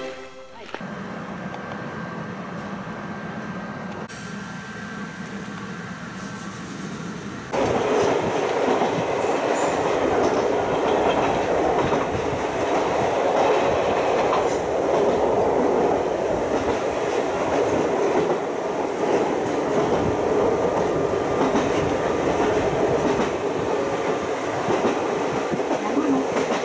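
Ichibata Electric Railway train running along the track, heard from inside the cab: a steady, dense running noise that comes in suddenly about seven and a half seconds in, after a quieter stretch.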